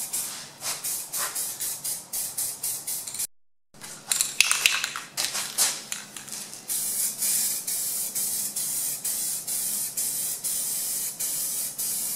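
Aerosol can of interior dye hissing as it is sprayed onto a plastic trim panel, in short pulses about three times a second. The spraying breaks off briefly about three seconds in.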